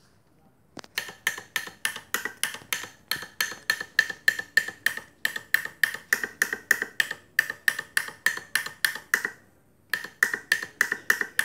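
MAROO three-trumpet horn sounded in quick short blasts, about five a second, with a thick tone. The blasts break off briefly a little before the end, then start again.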